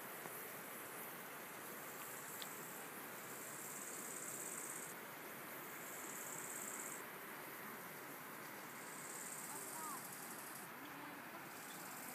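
Insects stridulating in the meadow grass: three high, buzzy trills of about two seconds each, over a steady rushing hiss of outdoor background noise.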